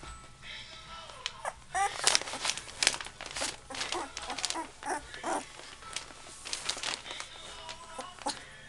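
Two-and-a-half-week-old Labrador retriever puppies squeaking and whimpering in short bursts as they squirm against each other, with crinkling and rustling of the bedding under them. The calls are densest in the middle, with a few rising-and-falling squeaks about two seconds in.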